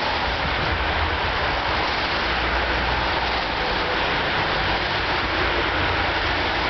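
Electric tram rolling past close by, with cars driving along the wet road beside it; a steady, even noise of wheels and tyres.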